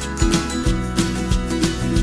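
Background music: an upbeat track with strummed guitar and a steady beat.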